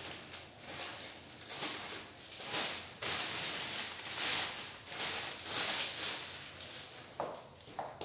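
Clear plastic bag crinkling and rustling in irregular bursts as hands grip and pull at it.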